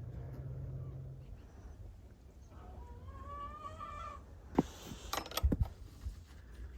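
A cat meowing once, a long call that rises slightly in pitch. About a second later come several sharp knocks or clicks.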